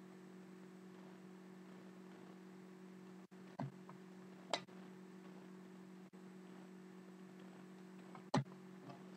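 Trading cards being handled and tapped against each other and the table: three short clicks, the loudest near the end, over a steady low electrical hum.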